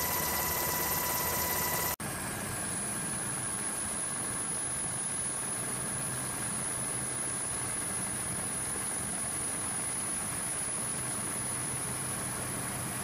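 Steady aircraft engine drone, with a hard edit about two seconds in where it drops out for an instant and resumes as a similar steady drone with a different pitch.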